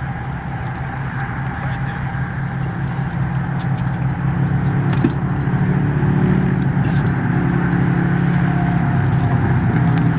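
A steady engine hum that slowly grows louder.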